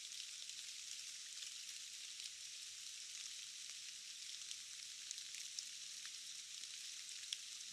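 Faint rain ambience: a thin, steady high hiss with scattered light ticks of drops.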